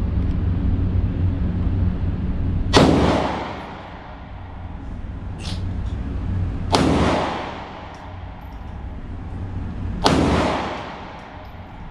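Three single pistol shots, a few seconds apart, each ringing out in the echo of an indoor range over a steady low rumble.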